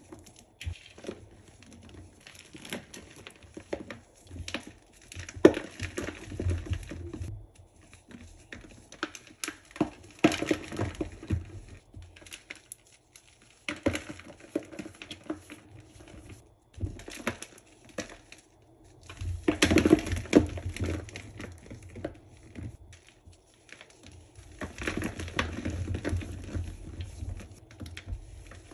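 Hands crushing chunks of a pressed Comet cleanser slab in loose Comet powder: crunchy crumbling and crackling in bursts every few seconds, with soft dull squeezes of powder between them.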